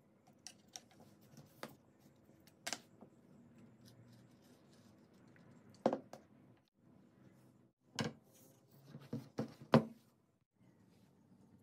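Handling of grey PVC pipe pieces and a wooden stock on a tabletop: scattered plastic-and-wood clicks and knocks, a few light ones at first, then louder single knocks and a quick cluster of knocks near the end, the last the loudest.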